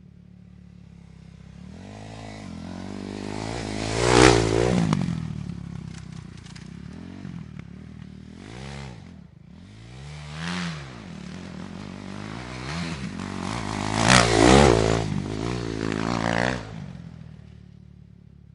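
Motorcycle engine running and revving. It swells to a loud peak about four seconds in and again near fifteen seconds, with revs rising and falling in between.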